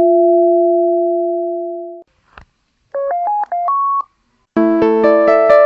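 Samsung mobile phone start-up and shut-down jingles. A steady two-note electronic tone fades out over about two seconds, then comes a click, then a quick run of about six short electronic notes ending on a held higher note. Near the end a piano-like chime of many notes begins.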